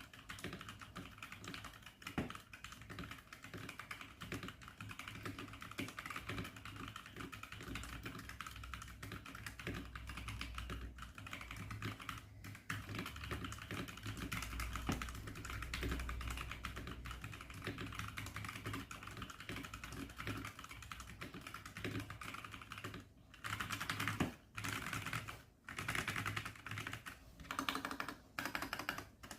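Fast typing on a Zifriend T62 mechanical keyboard with red linear switches: a dense, continuous stream of keystroke clacks that breaks into short bursts with brief pauses in the last several seconds.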